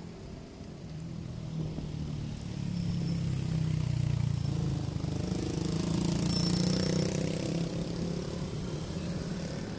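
Motorcycle engine running while riding along a city street among traffic, getting louder a few seconds in and easing off near the end.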